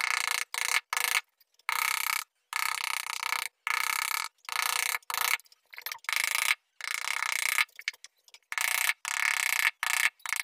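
Hand sanding of a carved wooden door panel with a sandpaper-wrapped wooden block: short scratchy strokes, roughly one to two a second, broken by brief pauses.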